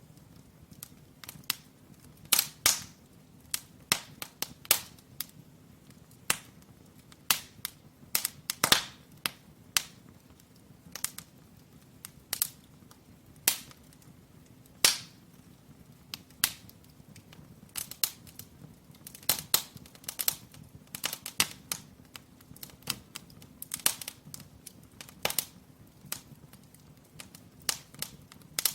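Firewood burning in a brick fireplace, crackling with irregular sharp pops and snaps, a few each second, some much louder than others.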